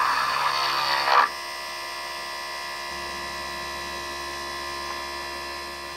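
A 775 DC motor spindle with a 2 mm drill bit cutting into chipboard, a rough, loud whine. About a second in the sound drops sharply as the bit comes out of the hole, and the motor spins on freely with a steady, thinner whine.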